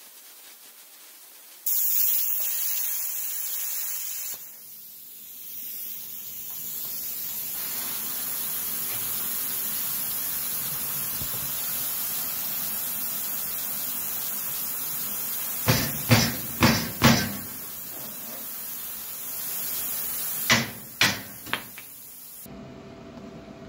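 PrimeWeld Cut60 plasma cutter hissing as it cuts 1-inch steel plate. The hiss starts suddenly about two seconds in, settles into a steady air hiss and cuts off near the end. Two short clusters of metal knocks and clanks come past the middle.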